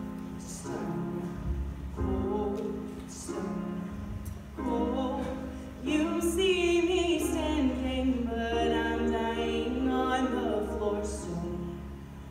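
Women's show choir singing held chords in short phrases. About six seconds in, a louder solo voice carries a gliding melody over the choir.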